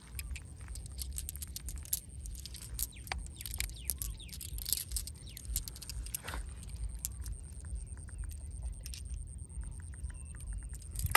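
Small polished stones clicking and clinking together in a hand over shallow river water, with light water sounds and a few bird chirps.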